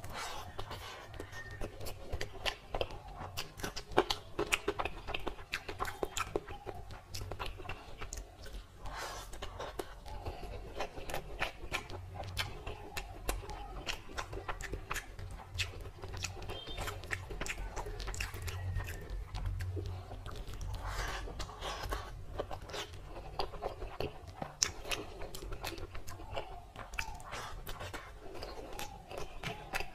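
A man chewing mouthfuls of rice and curry close to the microphone, with frequent wet smacks and clicks of the mouth.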